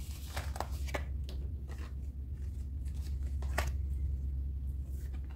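A deck of oracle cards being shuffled and handled by hand: a few crisp card clicks and snaps in the first second, and another about three and a half seconds in, over a steady low hum.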